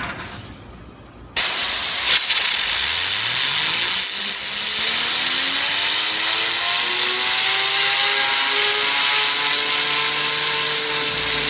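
Compressed air blasting from an air compressor's nozzle onto a fidget spinner. The loud hiss starts abruptly about a second and a half in. From about three seconds a whine rises steeply in pitch and then levels off as the spinner spins up to very high speed.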